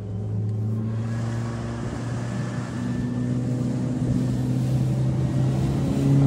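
Small boat's outboard motor running steadily under way, a low even hum with a faint wash of water and wind noise behind it.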